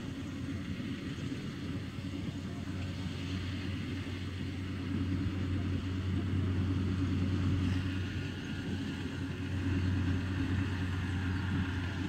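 Rice combine harvester's engine running steadily as it harvests, a low steady drone that swells a little about halfway through.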